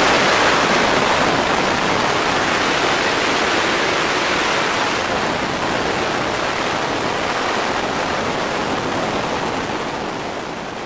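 Steady rush of freefall wind blasting over the camera's microphone, a dense hiss with no engine tone in it, easing off slightly toward the end.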